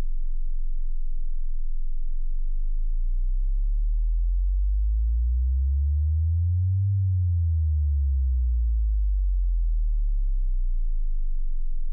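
Deep electronic sine tones. A steady low hum sits underneath while other tones glide slowly up in pitch to a peak about seven seconds in, then back down.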